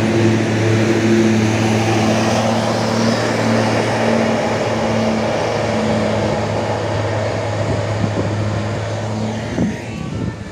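Tour bus engine running at a steady note as the bus drives up the hill past the camera, with tyre and road noise; the engine hum drops away near the end.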